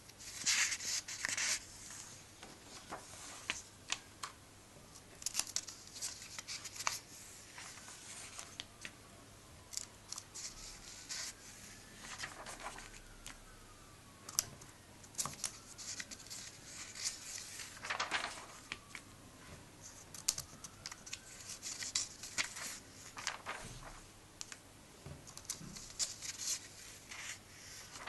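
Pages of a comic book being turned and smoothed flat by hand: a papery swish and rustle every few seconds, with light taps and scrapes of paper on the table between them.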